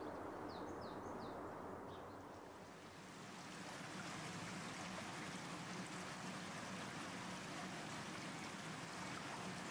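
Faint ambience with a few short, high chirps in the first second or so, then from about three seconds in the steady, water-like hiss of an indoor swimming pool hall.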